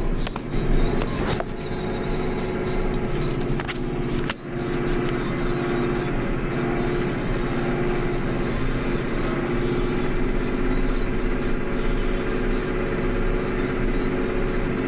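Claas Axos 340CX tractor's diesel engine running steadily, heard from inside the cab, with a few sharp knocks and rattles in the first five seconds.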